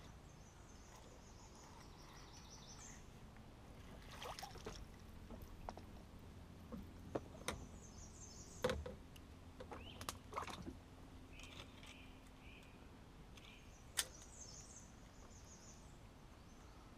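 Faint, scattered knocks and clatter of a paddle and fishing gear against a small boat's hull on a stream, with a songbird singing short high trilling phrases three times in the background.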